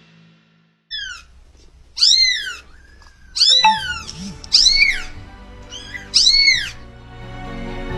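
A kitten meowing about five times, short high-pitched calls that rise and fall.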